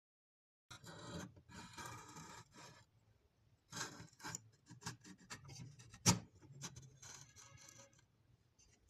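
Metal parts scraping and sliding against an air rifle's steel compression tube as it is handled and put back together, with scattered clicks and one sharp knock about six seconds in.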